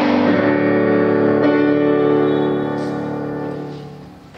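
Guitar playing the last chord of a song, which rings on and slowly dies away. It is strummed again about a second and a half in.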